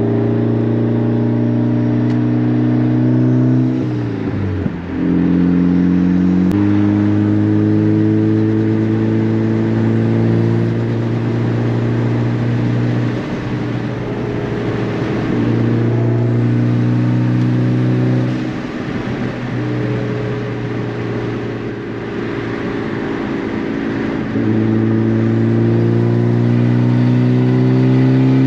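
Turbocharged four-cylinder engine of a Mitsubishi Lancer Evolution X with a full titanium exhaust, heard from inside the cabin while driving. The engine note climbs slowly under throttle. It briefly drops in pitch and level around four seconds in, and again around nineteen and twenty-two seconds, then pulls up again near the end.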